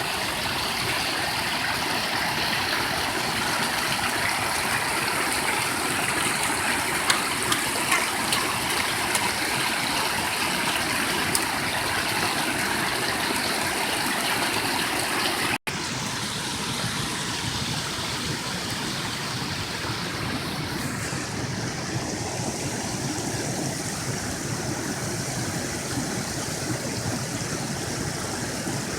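Small waterfall's water running steadily, a constant rushing. It drops out briefly about halfway through, and after that the rush is slightly softer.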